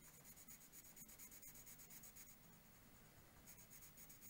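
Faint scratching of a colored pencil shading on paper in quick, even strokes, about five a second, pausing a little after two seconds in and resuming near the end.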